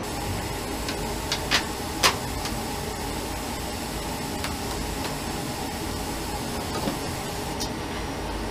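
Steady factory-floor machinery noise with a hiss. A few sharp clicks and taps come about one to two seconds in, and a fainter one near the end.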